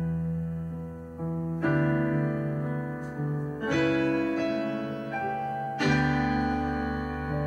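Slow, gentle piano music, with a new chord struck about every two seconds and left to ring.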